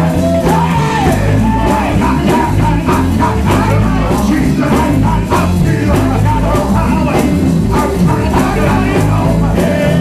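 Live gospel praise music: a man singing and shouting into a microphone over a band with a steady drum beat.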